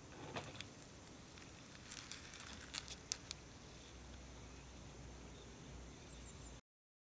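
Faint outdoor ambience with a few light, sharp ticks and taps in the first three seconds or so; the sound cuts off abruptly near the end.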